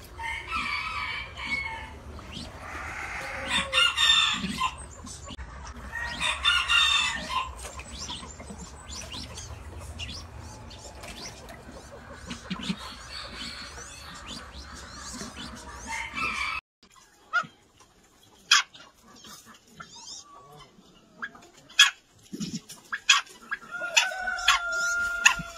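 Mandarin ducks calling, a series of short pitched calls repeating every second or two over a low rumble. About two-thirds of the way through, the sound cuts to a quieter stretch of scattered sharp clicks, with a held, steady-pitched call near the end.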